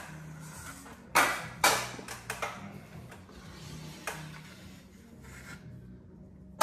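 6-inch stainless steel drywall knife scraping and spreading joint compound: two sharp scrapes a little over a second in, a couple more shortly after, a softer one around four seconds, and quiet rubbing in between.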